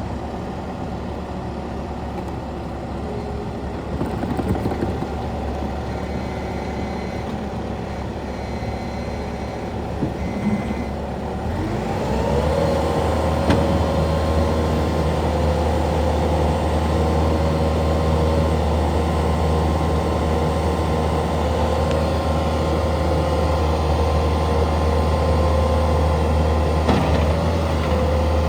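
2018 Bobcat T770 skid steer's diesel engine idling just after starting, then throttled up about twelve seconds in and held at a steady higher speed, with a brief dip near the end.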